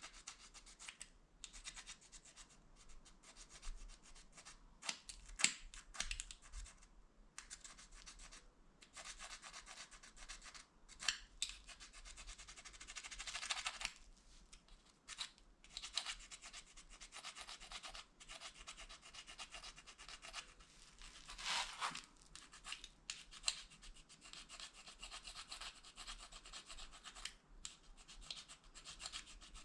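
Plastic fork tines scraping and rubbing against the edge of a plastic spoon in quick, repeated strokes, a dry scratchy sound, as the spoon is filed down to sharpen it.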